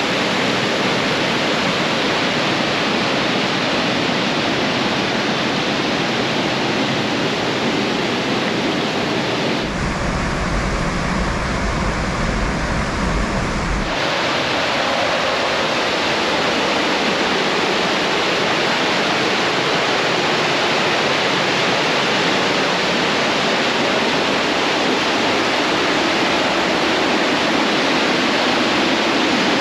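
Fast-flowing river rushing through a narrow gorge: a loud, steady hiss of running water. From about ten to fourteen seconds in it turns deeper and fuller, then goes back to the same steady hiss.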